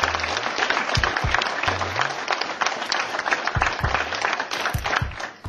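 An audience applauding: dense, steady clapping that dies away at the very end. Under it runs background music with a repeating low bass line.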